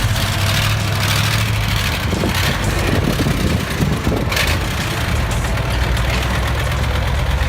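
Engine of a heavily loaded logging truck running steadily, a low drone under a broad rushing noise.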